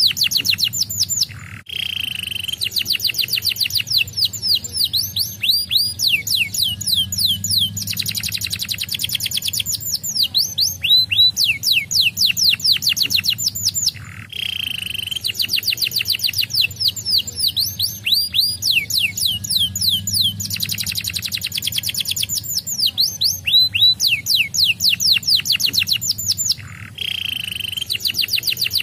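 Domestic canary singing a long, fast song of rapid high trills and swooping whistles, with brief breaks about every twelve seconds. The same sequence of phrases comes round each time.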